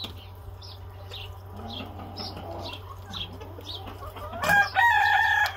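Chickens making soft short clucks and chirps, then a rooster starts a loud crow about four seconds in, a long call held on a steady pitch.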